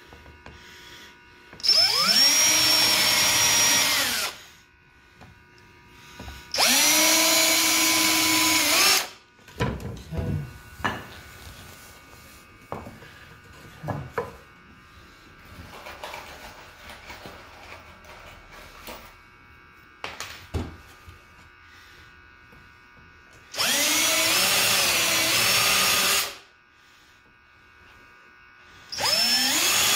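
Cordless DeWalt drill spinning a countersink bit into pieces of 2x4, in four runs of two to three seconds each; the motor whine rises quickly and then holds steady. Between the runs, the wooden brace pieces knock and click as they are handled and set down.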